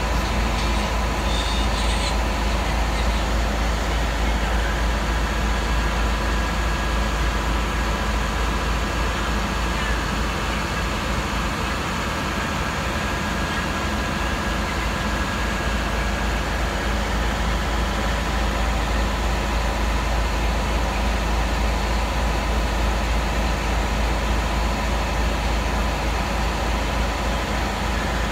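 Navistar MaxxForce DT diesel engine running steadily with a low rumble during a parked forced regeneration of the diesel particulate filter.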